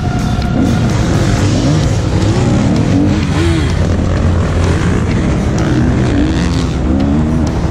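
Motocross bike engine revving up and down over and over as the throttle is worked.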